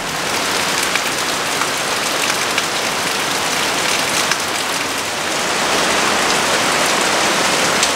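Rain falling steadily: an even hiss with scattered drop taps.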